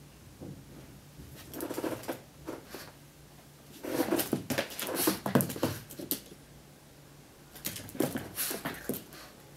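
A Boston Terrier's claws scrabbling and pattering on a hardwood floor as it spins and jumps. The sound comes in three bursts: briefly about one and a half seconds in, longest from about four to six seconds, and again near the end.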